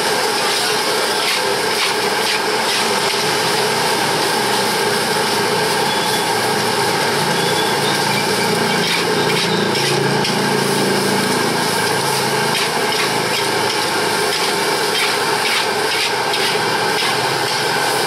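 Metal spatula scraping and tossing fried rice around a large wok, with a scrape every second or so, over the steady loud rush of the wok burner and sizzling.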